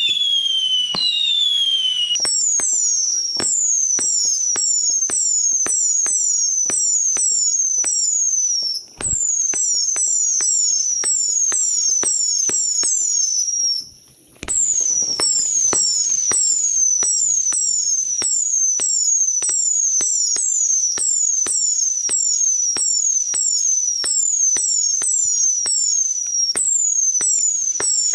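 Consumer fireworks cake firing whistling-tail shots in quick succession: a sharp pop at each launch and overlapping high whistles that each fall in pitch, about two a second, with brief pauses about nine and fourteen seconds in.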